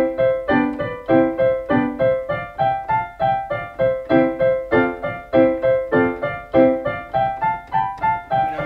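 Solo piano background music: a gentle melody of steady, evenly paced notes, each struck and then dying away.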